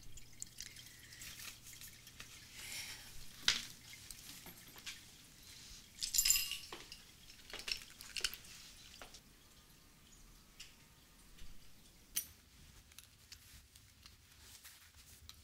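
Water from a small aquarium's filter dripping and trickling into the tank, with irregular small plinks and a few sharper clicks.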